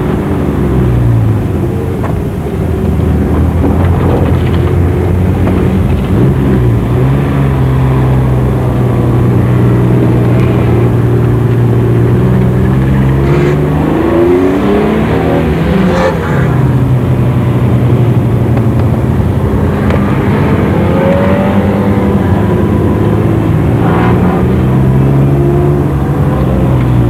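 Rally car engine heard from inside the cabin, revving hard through the gears. Its pitch climbs, then drops sharply at each shift or lift, about five times.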